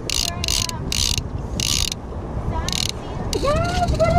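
Spinning reel's drag ratcheting in short bursts, several a second, as line is pulled off the spool, then only now and then. Near the end a person calls out with a rising voice.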